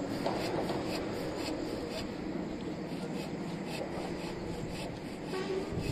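Rhythmic scraping strokes, about two a second, over a steady background.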